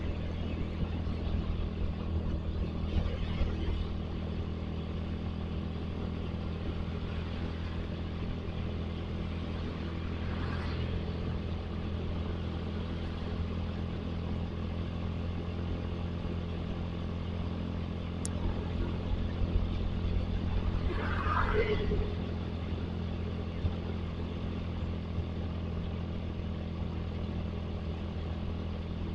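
Suzuki Satria FU motorcycle's single-cylinder four-stroke engine running at a steady cruising speed while riding, with road noise. It swells louder briefly a few times, most around two-thirds of the way through.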